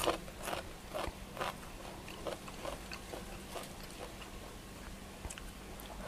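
A person gulping water, with a soft swallowing click about twice a second that thins out after the first few seconds.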